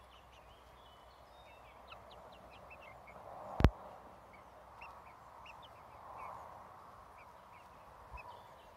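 Young chickens peeping with short, high chirps, over a soft background hiss. One sharp click a little under halfway through.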